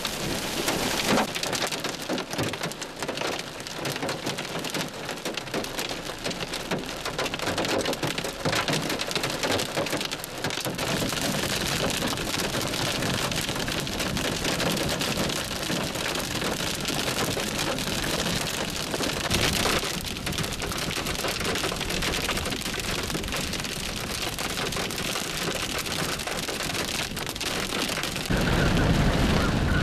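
Heavy wind-driven hail falling in a dense, steady patter, with many sharp individual impacts in the first ten seconds or so. Near the end it gives way to a louder low rumble of a vehicle driving over the hail-covered road.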